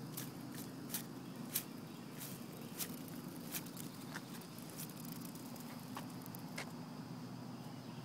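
Soft footsteps and rustling in lawn grass, heard as scattered irregular ticks, over a steady low hum in the background.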